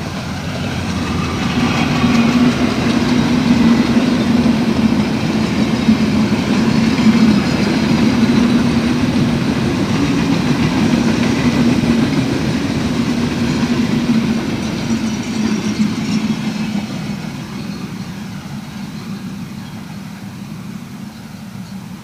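Bangladesh Railway intercity express passing at speed: the diesel locomotive and a long rake of passenger coaches make a steady rumble of wheels on rails. It swells over the first couple of seconds, holds, then fades away from about two-thirds of the way in as the train recedes.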